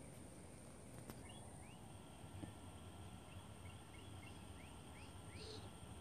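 Faint outdoor ambience: a light wind rumble on the microphone, with faint distant bird chirps from about a second in.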